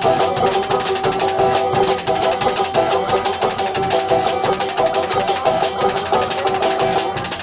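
Live band playing an instrumental passage: a banjo and a drum kit with a large bass drum keep a fast, even rhythm. Sustained tones underneath stop shortly before the end, and the playing continues a little quieter.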